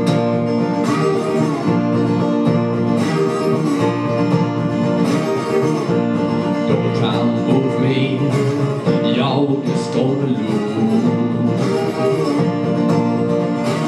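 Steel-string acoustic guitar strummed in an instrumental break, with strong accented strokes about once a second.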